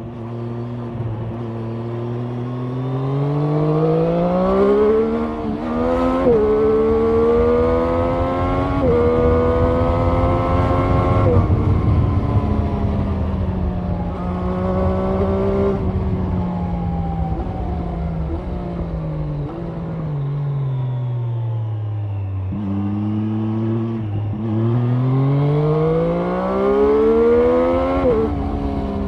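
Triumph Street Triple 765 RS three-cylinder engine accelerating hard through the gears, its pitch climbing and breaking off briefly at each upshift. In the middle it eases down as the throttle is backed off, then climbs again through several more quick upshifts near the end.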